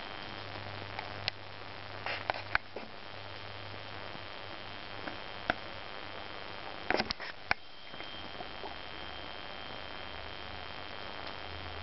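Guinea pigs chewing raw carrot, cucumber and apple pieces: scattered sharp crunches, a cluster of them about seven seconds in, over a steady low hiss.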